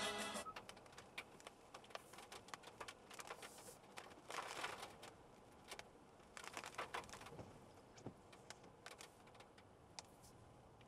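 Faint, irregular ticks and taps, with a few denser clusters, from a car driving in the rain, after a short electronic chime that fades out about half a second in.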